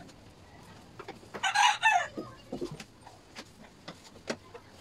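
A rooster crows once, about a second and a half in, the loudest sound here. Scattered light clicks and rustles come from curtains being handled.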